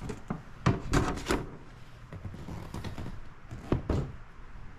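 Several sharp clunks and knocks as the seat of a 2005 Polaris Predator 500 ATV is unlatched and lifted off, with a closely spaced pair of further knocks near the end.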